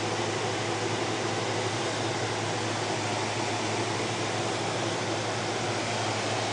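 Steady fan noise and hiss from running computers, over a constant low hum, with no change throughout.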